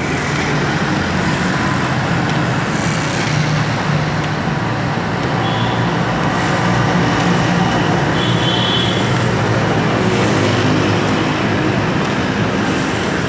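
Steady road traffic noise with motorbike engines running, a continuous low hum under a hiss of passing vehicles.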